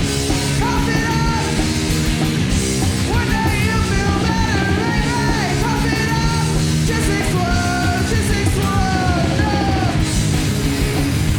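Punk rock trio playing live, with electric guitar, bass and drum kit, and a woman singing and shouting over the band. Near the end the vocals stop and the band plays on.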